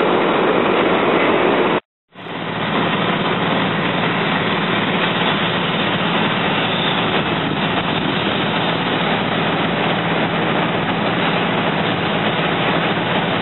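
Steady vehicle engine noise, with a faint low hum, from fire apparatus running at the scene. It cuts out abruptly for a moment about two seconds in and resumes unchanged.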